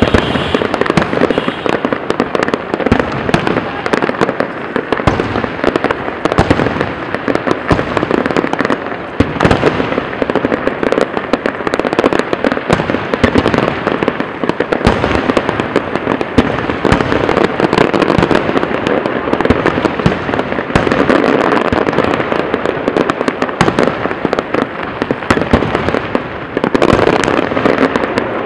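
Aerial firework shells bursting one after another in a dense, continuous barrage of bangs with no pause.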